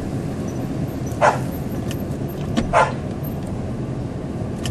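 A dog barking twice, about a second and a half apart, over the steady low running of a pickup truck's engine heard from inside the cab.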